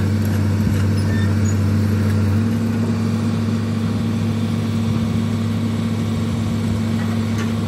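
Diesel engine of a 200LC tracked excavator running steadily as it lowers a suspended dozer blade; about two seconds in the engine note changes, its deepest hum dropping away and the pitch stepping up slightly.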